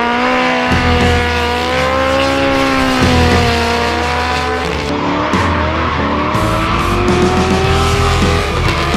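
Drift cars sliding through a corner, engines held at high revs with a slowly wavering note and tyres squealing. About five seconds in, a second engine note takes over, rising slowly as tyre noise builds. Background music with a steady bass beat plays underneath.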